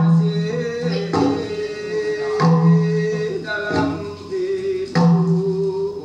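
Recording of a Temiar healing song (noñ) played back over the hall's speakers: a wavering solo singing voice over percussion strokes about every 1.3 seconds, each leaving a ringing low tone.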